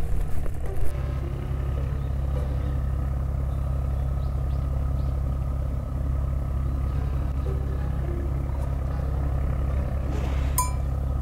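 Steady low engine rumble of a boat's engine running at the ferry landing. There is a single sharp click about ten and a half seconds in.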